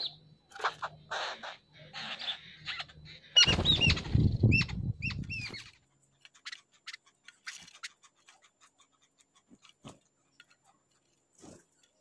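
Jungle babblers giving repeated harsh, rasping chatter for about three seconds. Then comes a loud low rumbling noise for about two seconds with several clear, arching chirps over it, followed by sparse short chirps and small clicks.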